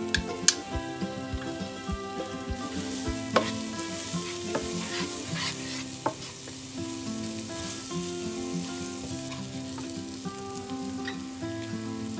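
Diced onions sizzling in butter in a nonstick frying pan, stirred with a wooden spatula, with a few sharp clicks of utensils against the pan. Soft background music plays throughout.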